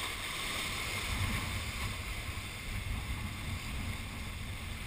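Waves washing and splashing against jetty rocks, with wind buffeting the microphone as a steady rushing noise and uneven low rumble.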